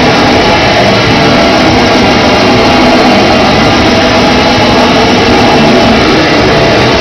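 Black metal band playing live at full volume: pounding drums under distorted guitars, loud and unbroken.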